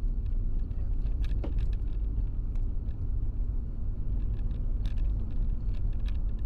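Car driving at road speed, heard from inside the cabin: a steady low rumble of tyres and engine, with scattered light ticks.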